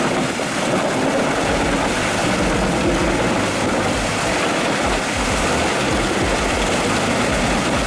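Heavy machinery running: a loud, steady din of diesel engine and mechanical noise.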